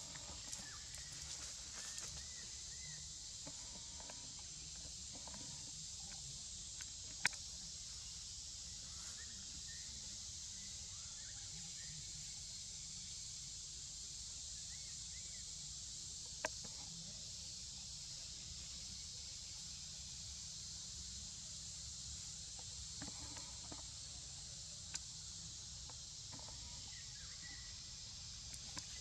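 Steady high-pitched insect chorus over a low rumble, with a few sharp clicks, the loudest about seven seconds in.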